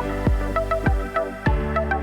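Background electronic music with a steady beat and a short repeating synth melody.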